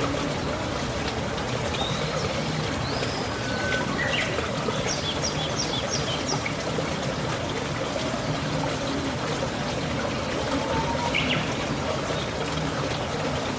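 Steady rush of running water, with birds calling over it: short chirps and whistles, and a quick string of about five high notes about five seconds in.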